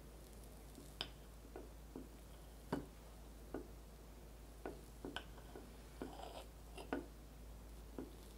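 Metal fork cutting into a soft matcha sponge roll cake and tapping against a ceramic plate: light, irregular clicks, with a brief soft rustle of the cake about six seconds in.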